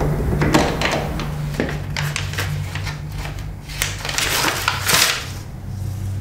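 A horror soundtrack of irregular rattling and scraping noises over a low, steady droning hum. The rattling is densest and loudest about four to five seconds in, then fades.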